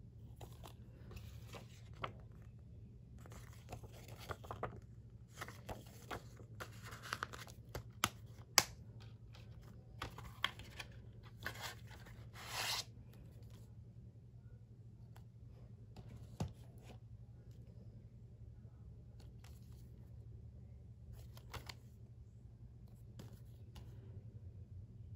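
Plastic Blu-ray cases and cardboard slipcovers being handled: rustling and sliding with a few sharp clicks of the plastic case, busiest in the first half, then only an occasional click.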